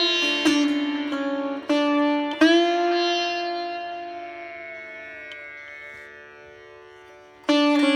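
Background instrumental music on a plucked string instrument with bending notes over a steady drone; one long note rings and slowly fades before a new phrase is plucked near the end.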